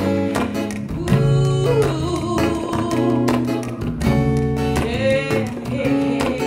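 Acoustic guitar playing the introduction of a song, picked chords with a wavering wordless melody line above them.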